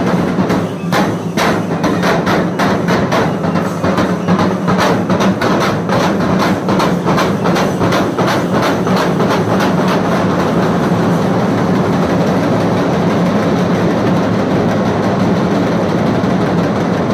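A group of large barrel drums beaten with sticks in a fast, dense rhythm. About ten seconds in, the separate strokes blur into a continuous roll.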